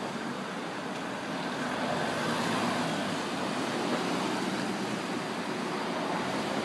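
Street traffic noise, a steady wash of passing vehicles that grows a little louder from about two seconds in.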